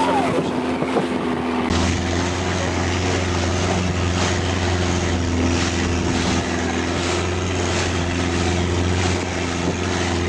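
Speedboat motor running steadily at speed, a steady drone with wind buffeting and spray from the hull cutting through the waves. The sound changes abruptly just under two seconds in, the drone deepening and steadying.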